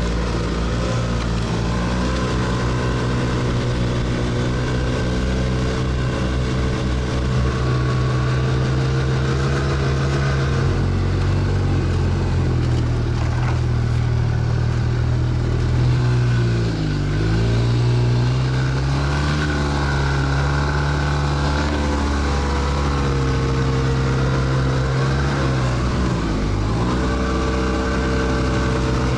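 A vehicle engine running steadily under way. Its speed drops and picks up again about halfway through and once more near the end.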